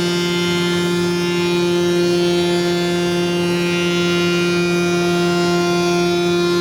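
CNC router spindle milling a rebate into a door leaf, a steady high whine at an unchanging pitch.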